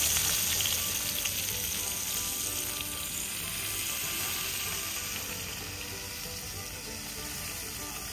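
Small whole fish frying in oil in a cast-iron skillet over a low flame: a steady sizzle that slowly eases, the slow, gentle fry of oil that is not burning.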